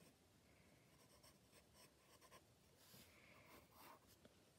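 Faint scratching of a hard 2H graphite pencil drawing on sketchbook paper, with a few short strokes in the second half.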